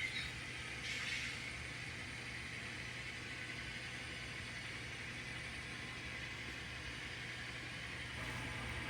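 N scale model diesel locomotives running along the track, their sound decoders playing a steady diesel engine sound through small speakers, with a couple of brief bumps near the start.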